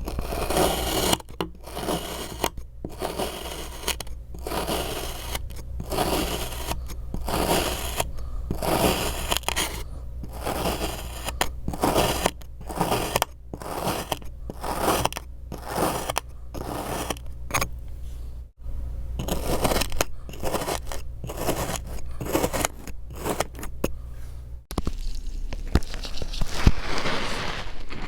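Kinetic sand being cut and scraped, in a long run of short gritty strokes with brief gaps between them. The strokes break off sharply twice and come denser and crisper near the end.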